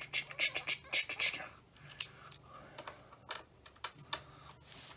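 Hands and a screwdriver working on a laptop's plastic casing: a quick run of sharp clicks and taps for the first second and a half, then scattered single clicks.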